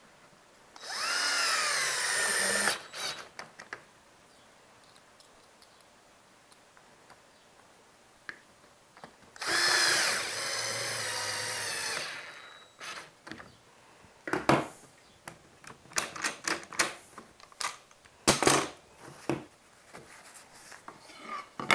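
Cordless drill on low speed driving two pocket-hole screws into a clamped butt joint, each run lasting about two seconds, the motor's whine rising and then sagging. Scattered knocks and taps follow as the joined boards are handled.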